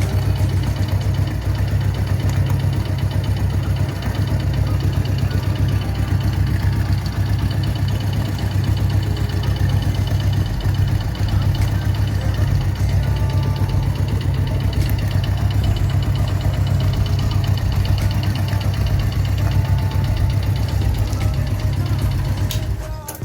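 Motorcycle engine running steadily at idle, with no revving; it cuts off near the end.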